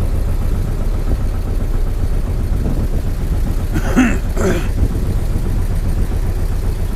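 Fishing boat's engine running steadily with a low, even rumble, and a short vocal sound about four seconds in.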